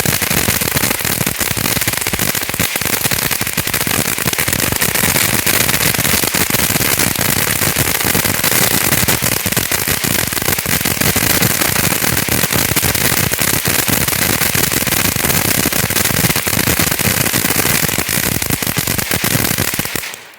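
TNT Fireworks Delirious consumer fountain burning: a loud, steady hiss of spraying sparks thick with fast crackling, which dies away about twenty seconds in as the fountain burns out.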